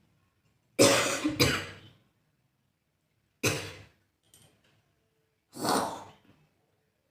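A person coughing hard: two coughs in quick succession about a second in, then a single cough at about three and a half seconds and another near six seconds.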